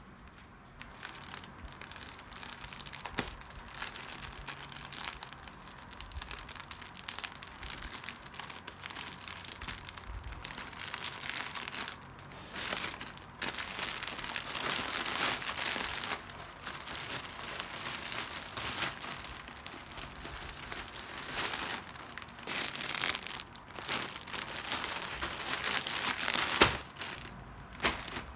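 Thin plastic mailer bag and plastic-wrapped yarn skeins crinkling and rustling in irregular bursts as they are handled and unpacked by hand, with one sharper crackle near the end.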